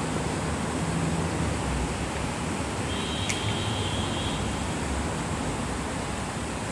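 Steady, fairly loud wash of outdoor background noise with some low rumble. A brief high tone sounds about three seconds in, with a sharp click in the middle of it.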